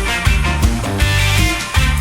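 Rock music with electric guitar, bass and drums playing a steady driving beat.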